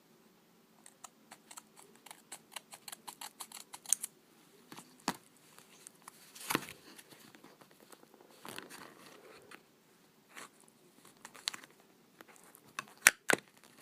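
Hands working on an opened laptop's underside: a quick run of small clicks, about four a second, then scattered knocks and a brief rustle, with two sharp knocks near the end.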